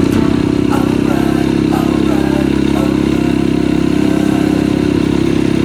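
Off-road motorcycle engine running steadily under way, holding an even speed.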